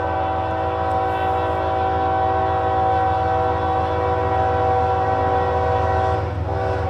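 Diesel freight locomotive's air horn blowing one long, steady chord for a grade crossing as the train approaches, dipping briefly near the end. A low rumble runs underneath.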